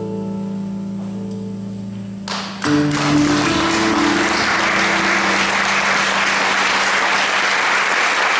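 A band's last chord held and slowly fading, then about two seconds in an audience bursts into loud, sustained applause.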